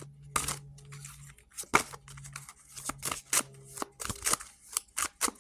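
A deck of oracle cards being shuffled and handled: quick riffling and snapping clicks of card against card, with a faint low hum underneath during the first half.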